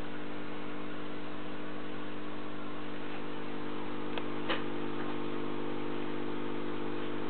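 Aquarium air pump humming steadily, driving the airstone's stream of bubbles. Two light clicks a little past halfway.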